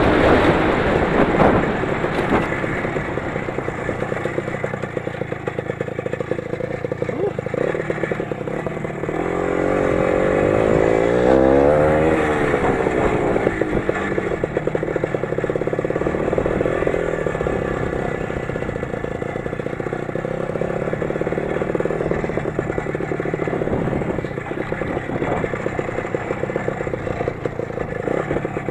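The 20 hp engine of a Lider 3.221 under way off-road, revving up and back down about ten seconds in, then running steadily again.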